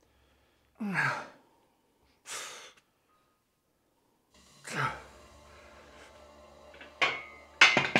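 A person's short breathy outbursts, heard three times with dead silence between: two are voiced and drop in pitch like heavy sighs or exhales, and one is a brief unvoiced puff of breath. Two sharp knocks come near the end.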